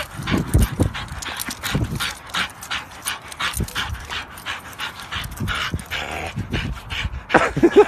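A dog panting during play, with quick irregular breaths and some scuffling.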